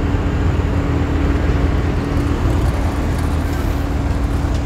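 Steady mechanical drone, a single held hum over a low rumble, that cuts off at the very end.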